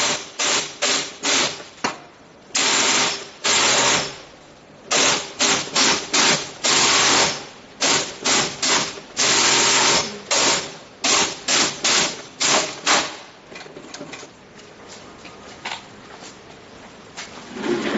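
Mattress flanging machine's industrial overlock sewing head running in short stop-start bursts as a mattress panel edge is fed through it, some runs lasting about a second. The stitching stops about 13 seconds in, leaving only faint handling sounds.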